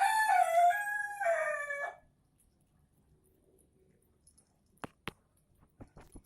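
A rooster crowing once, a single pitched call of about two seconds that dips and falls away at the end. A few sharp clicks follow in the second half.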